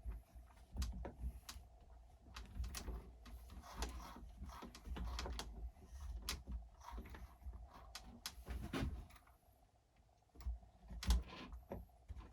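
Irregular light clicks and knocks of a hand tool and small metal and plastic parts as a wheel nut is screwed onto an RC truck's wheel hex, with one sharper knock near the end.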